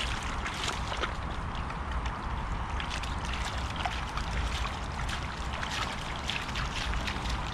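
Boxer dog wading and pawing in a shallow rainwater puddle: many small, quick splashes and slosh of water, over a steady low rumble.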